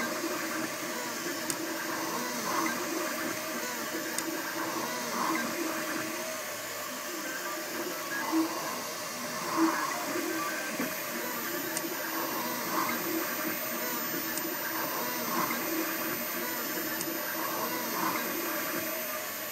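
Makerbot Replicator 2 3D printer printing: its stepper motors whir in shifting, warbling tones as the extruder travels over the part, swelling slightly every second or so.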